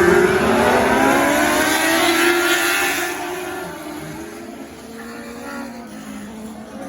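Micro lightning sprint cars racing past at high revs, several engines at different pitches rising and falling together. Loud for about three seconds, then fading as the cars move away.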